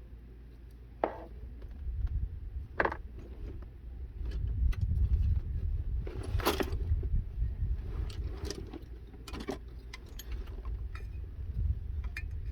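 Hand tools and small metal parts clinking and knocking in scattered, irregular clicks, like tools being sorted through in a tool bag, over a low rumble.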